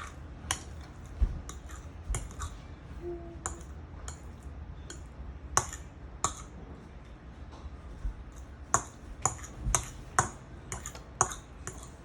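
Irregular sharp clicks and taps of kitchen utensils against a bowl during guacamole making, about twenty over the stretch, over a steady low hum.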